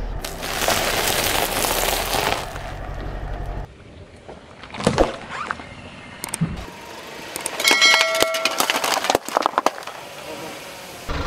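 A car tyre rolling over and crushing plastic cups and plastic-wrapped food and drink packs. For the first few seconds there is the steady noise of the car and wet tyre. After that it is quieter, with a few sharp cracks and then a dense run of crackling, crunching plastic.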